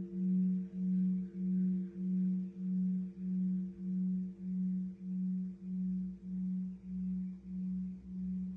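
Great bronze temple bell (đại hồng chung) ringing on after a strike: a low hum that swells and fades about one and a half times a second, slowly dying away, with fainter higher tones above it.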